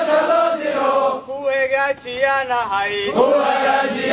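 A group of men chanting together in short repeated phrases, several voices at once.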